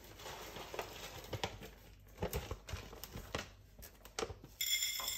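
Cereal box and its packaging being handled: scattered rustling and crinkling with a few light knocks, growing denser near the end.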